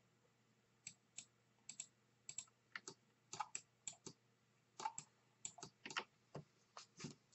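Faint, irregular clicks of a computer keyboard and mouse, about two dozen short ticks scattered through the stretch.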